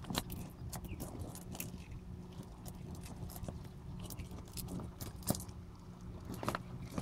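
Several eastern box turtles biting, tearing and chewing at a dead brown rat: irregular small clicks, crunches and scrapes, with sharper cracks a little past five seconds in and again near the end.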